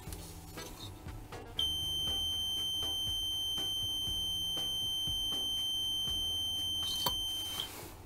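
Sump pump alarm's buzzer sounding one steady high-pitched tone for about six seconds, starting about a second and a half in: the high-water-level alarm has tripped.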